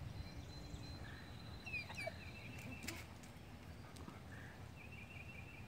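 Faint wild birdsong in the woods: scattered short chirps and a couple of brief trills, with a few sharp clicks around the middle.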